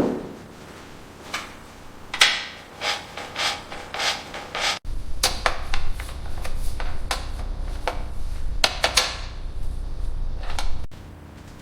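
Repeated short rubbing and scraping strokes, a few a second and irregular, as in hand sanding or scrubbing. The sound cuts off abruptly twice and restarts, with a low steady rumble under the middle stretch.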